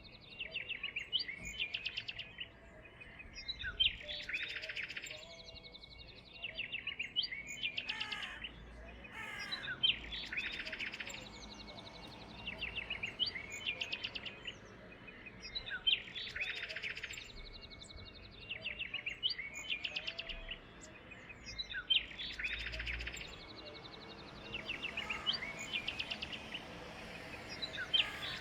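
A small songbird singing a rapid trilled phrase of quick high notes, repeated about every three seconds, with short single calls between the phrases.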